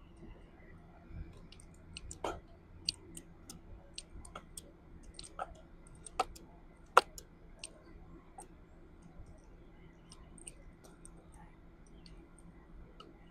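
Irregular clicks and light taps of mount parts being handled and screwed together by hand, the sharpest click about seven seconds in.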